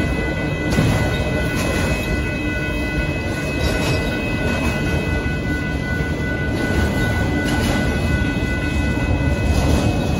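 Norfolk Southern freight train of autorack cars rolling steadily past at close range, a continuous rumble with irregular wheel clatter. Several steady high-pitched tones ring above it.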